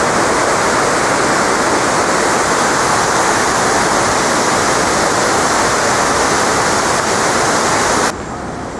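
Steady, loud rush of falling water from the 9/11 Memorial pool waterfalls. It cuts off abruptly near the end, leaving quieter city background.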